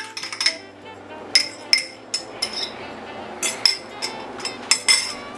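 Eggs being beaten in a metal cake pan: a utensil clinks against the pan about ten times in irregular strokes, over background music.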